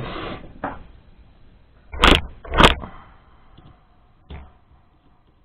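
Hand-tool handling on a wooden workbench: a few small clicks and a brief rustle, two sharp knocks about two seconds in, then faint clicks as a screwdriver drives a Torx 20 screw into the ventilation blower's motor hub.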